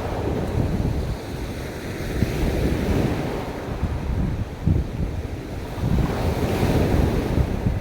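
Ocean waves breaking and washing up a beach, with a swell of surf hiss about six seconds in, and wind buffeting the microphone as a gusty low rumble.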